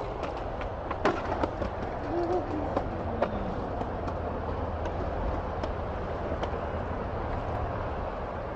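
Skateboard landing a flip trick: a sharp clack of the board hitting the asphalt about a second in, with a few lighter clicks, then the wheels rolling away over the street as a steady low rumble.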